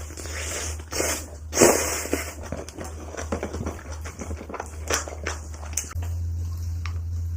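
Close-miked eating sounds: food being bitten and chewed, with short clicks and crunches, over a steady low hum.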